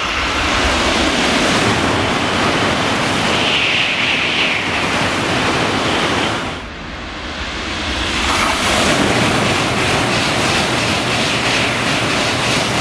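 Shinkansen bullet train passing through the station at high speed without stopping: a loud rush of air and wheel noise that dips briefly about halfway through, then builds again.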